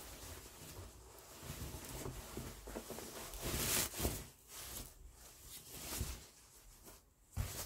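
Rustling and swishing of a skirt's slippery lining fabric as it is gathered and moved about by hand, in uneven swells, loudest a little under four seconds in.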